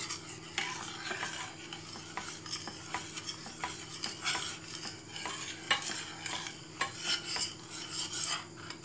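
Metal spoon stirring a thick cornmeal, butter and water mixture in a stainless steel pot, with irregular scrapes and clinks against the pot and a light sizzle beneath. The cornmeal is cooking until it soaks up the water.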